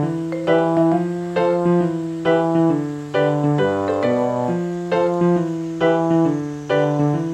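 Background music: gently plucked guitar or piano-like chords, a new one struck about once a second, each fading before the next.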